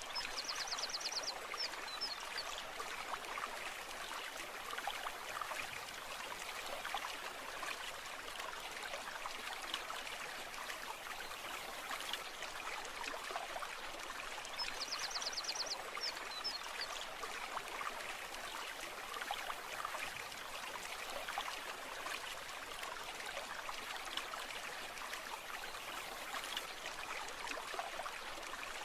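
Stream water running steadily, with a short, rapid high trill heard twice, about fourteen seconds apart.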